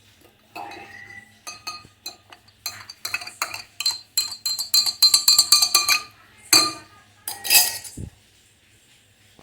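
Metal spoon clinking rapidly against a glass, with a ringing note after the strikes, as it stirs honey into the hot ginger decoction. Near the end come two louder clatters and a low thud.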